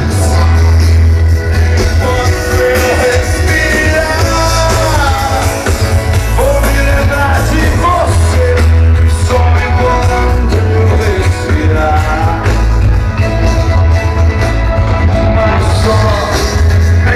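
Loud rock music with a singing voice, heard over large outdoor PA speakers, with a heavy bass that dominates the mix.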